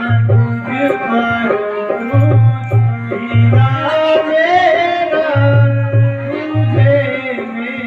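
Traditional Indian stage music: tabla-style drumming in a repeating pattern under a held drone and a melody line that wavers and glides around the middle.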